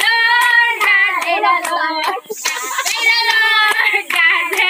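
A group of adults and children singing a birthday song together, clapping their hands along to it.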